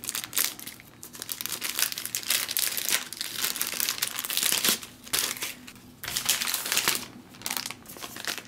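Plastic pouch of a MealSpec flameless ration heater crinkling and rustling as it is opened by hand and the heating-element bag is pulled out, on and off with a couple of short pauses.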